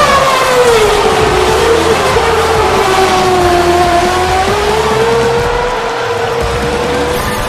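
Race car engine sound effect running steadily, its pitch sliding down over the first few seconds, then rising slowly and levelling off.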